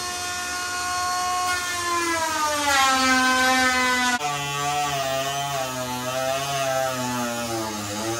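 Small handheld cordless cutting tool whining as it cuts through a plastic radiator-support cover. Its pitch sinks and wavers as the cut loads the motor, and jumps abruptly about four seconds in.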